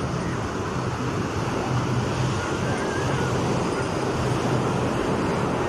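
Steady outdoor background noise of a busy open-air space: a low rumble like distant traffic, mixed with wind or surf and faint voices.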